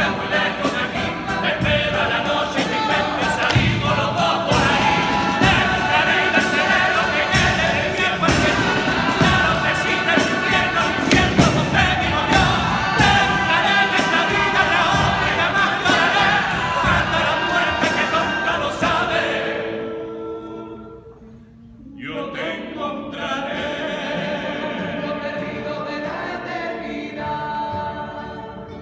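An all-male choral group singing a popurrí together, full-voiced, with sharp beats running under the first part. About twenty seconds in, the song dies away and breaks off briefly. The voices then start again more softly and fade near the end.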